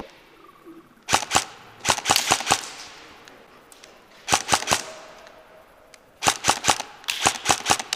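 Airsoft M4-style rifle firing in short bursts of two to five sharp shots, five bursts in all, each crack echoing briefly off a large hall.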